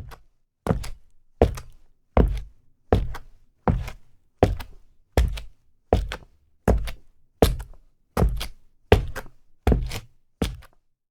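Boots walking at a steady pace on a hard surface: about fifteen footsteps, roughly one every three-quarters of a second, each a heavy heel-then-sole strike.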